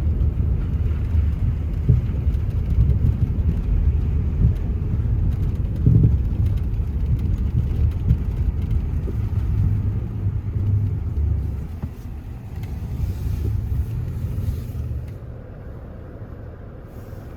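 Car driving, a steady low rumble of engine and road noise that gets quieter about twelve seconds in and quieter again near the end.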